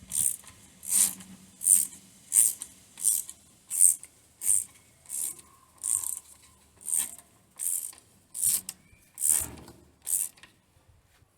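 Ratchet spanner being worked back and forth on a bolt, in a steady rhythm of about fifteen strokes, roughly one every 0.7 seconds.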